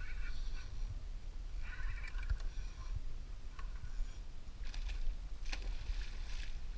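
Wind and water rumble against a kayak-mounted camera. There are two short high whines in the first half. From about five seconds in, a hooked mahi-mahi splashes and thrashes at the surface.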